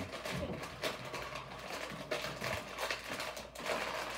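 Crinkling and crackling of a Takis chip bag being pulled open and handled, a run of irregular crackles.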